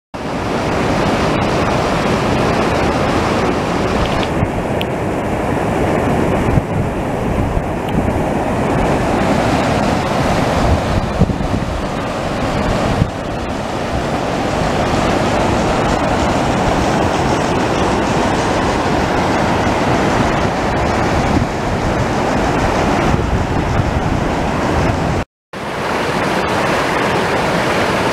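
Mountain creek whitewater rushing over rocks in a steady, loud cascade. It breaks off briefly about three seconds before the end, then resumes.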